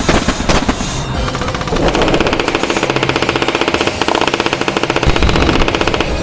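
Loud, harsh EAS-style emergency alert alarm: electronic tones pulsing very rapidly like a buzzer. About two seconds in, a lower buzzing tone joins and the pulsing continues.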